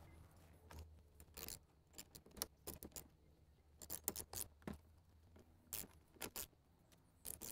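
Light metallic clicks and scrapes of small nuts and a socket tool being fitted onto the mounting studs of a tractor's fuel tank sender, coming in short irregular clusters.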